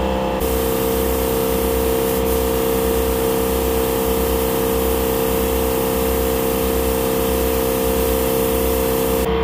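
Hiss of compressed air through an HVLP paint spray gun over the steady hum of an air compressor running, with a low rhythmic pulsing. It cuts in and out abruptly.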